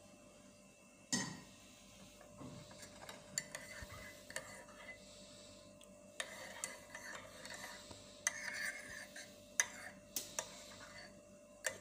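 Faint small clicks and knocks of a glass and kitchen utensils being handled, with one louder knock about a second in.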